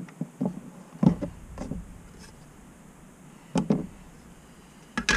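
Knocks and clunks of a small digital pocket scale being set down and handled on a stainless steel table: one at the start, several over the next two seconds, a pair at about three and a half seconds, and another near the end.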